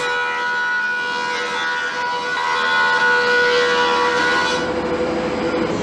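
Laguna 25-inch thickness planer cutting a thin board fed through on an MDF sled, taking a light pass. A high, steady whine sets in suddenly as the wood reaches the cutterhead, over the machine's running hum, and eases about four and a half seconds in as the cut ends.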